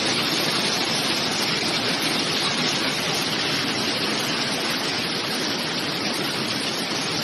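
Swollen, muddy floodwater rushing past in a steady, unbroken wash of noise.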